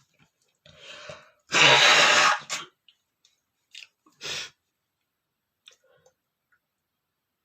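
A man sneezing from a dust allergy: a breathy intake about a second in, then one loud sneeze lasting under a second, followed by a few short, quieter breaths.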